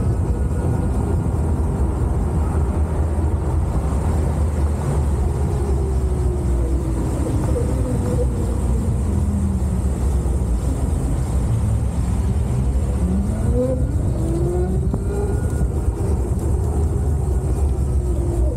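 Wind and road noise rushing past a moving Zero electric motorcycle. Under it, the electric drive's whine falls in pitch as the bike slows, to about ten seconds in, then rises again as it pulls away.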